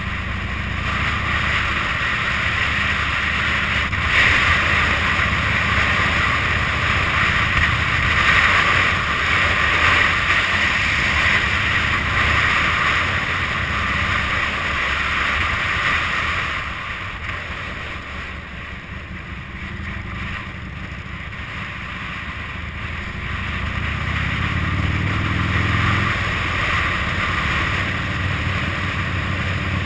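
Motorcycle engine running at road speed with wind rushing over the microphone. Past the middle it goes quieter for several seconds, then the engine pitch rises as the bike picks up speed again.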